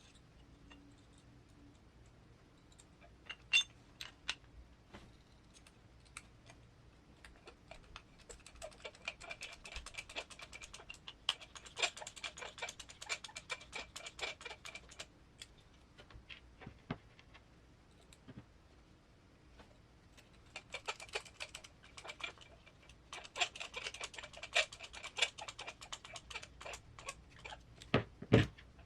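Rapid light clicking and tapping of small parts and hand tools during bench assembly of an RC crawler transmission, in two long busy stretches, with a few sharper knocks about 3.5 s in and near the end.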